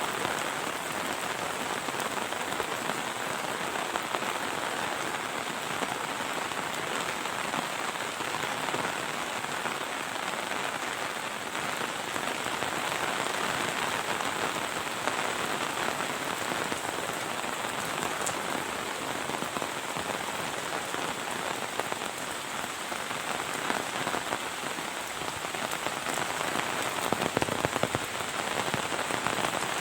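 Heavy monsoon rain falling steadily, a dense even hiss of drops on the ground, with a few louder splattering hits near the end.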